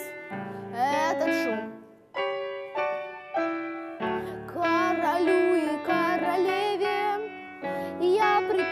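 A girl singing a song with piano accompaniment. About two seconds in the voice drops out and the piano plays chords alone, then she sings on.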